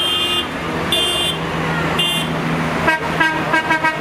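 Tractor horns sounding over the running engines of a passing tractor convoy: three short high toots about a second apart, then near the end a fast run of short pitched horn notes like a musical horn.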